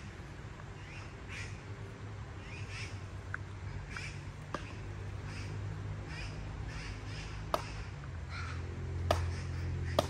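An animal calling: a run of short, high calls, more than one a second, over a low steady hum, with a few sharp clicks in the second half.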